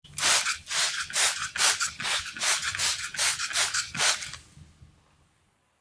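Brisk back-and-forth scrubbing strokes on a soapy, sudsy surface, about four a second, which stop about four and a half seconds in.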